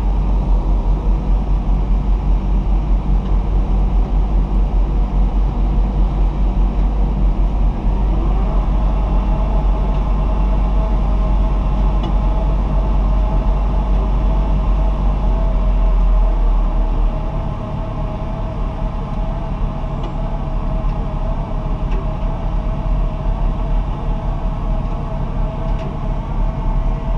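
JCB 437 HT wheel loader's diesel engine running hard, heard from inside the cab, with a wavering whine joining about eight seconds in. The engine eases off somewhat at about seventeen seconds.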